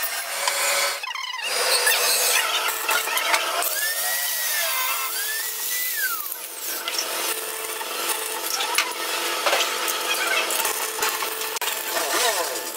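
Metalworking noise: steel pressed against a large abrasive grinding wheel, a continuous harsh rasp. A thin high tone rises and falls twice a little past the middle.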